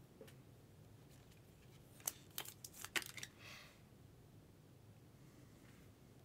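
Trading cards being handled, with a few faint clicks about two to three seconds in and a brief soft slide just after, between stretches of near silence.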